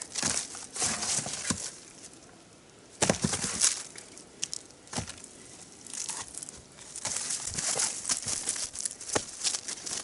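Split firewood logs being picked up and restacked on a fallen woodpile: irregular wooden knocks and clatter mixed with rustling and crunching in snow, with a short lull about two seconds in.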